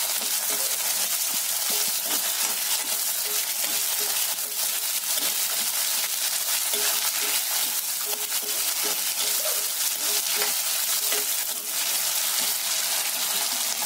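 Freshly added sliced onions sizzling steadily in hot oil in a kadai, together with a tempering of peanuts, dals, garlic and green chillies, while a steel spoon stirs them with scraping clicks against the pan.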